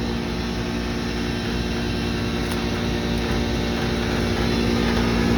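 Commercial air-conditioning unit running: a steady compressor hum with several fixed low tones over an even rushing noise.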